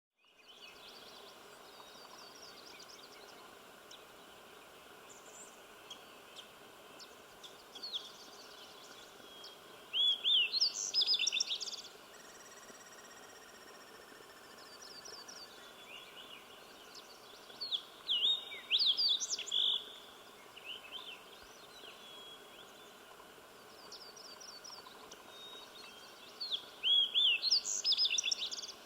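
Slate-colored Fox Sparrow singing: three loud song phrases of quick, warbled notes, each about two seconds long and roughly eight seconds apart, with fainter chirps in between over a steady hiss.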